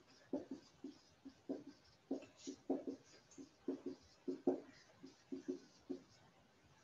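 Dry-erase marker writing on a whiteboard: a quick run of short marker strokes, several a second.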